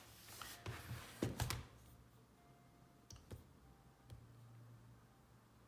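A few faint, scattered clicks and light handling noises, with a cluster in the first second and a half and two more a little past the middle.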